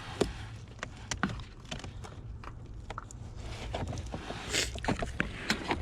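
Plastic clicks and knocks with a scraping slide about four seconds in: the tabs of a 2011 Honda CR-V's cabin air filter holder being pressed and the holder pulled out from behind the glove box.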